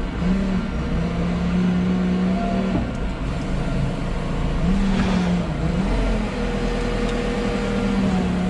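Manitou MRT telehandler's diesel engine running, heard from inside the cab. Its note rises and settles back a few times as the machine is worked.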